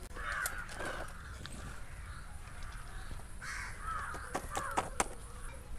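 Crows cawing in two bouts, one at the start and another about three and a half seconds in, with a few sharp clicks near the end.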